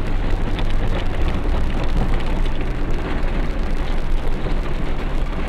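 Inside a moving car on an unsealed road: steady engine and tyre rumble, with gravel crackling under the tyres.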